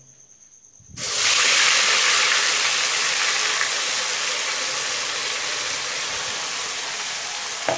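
Ground onion, ginger and garlic masala paste tipped into hot oil in an aluminium kadhai, hitting the oil about a second in and sizzling loudly, the sizzle easing slowly.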